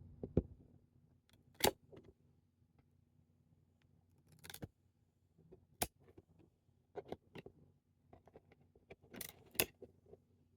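Trading cards being handled: scattered crisp clicks and rustles, about eight spread unevenly, as cards and pack wrappers are slid and flipped. A faint steady hum sits beneath.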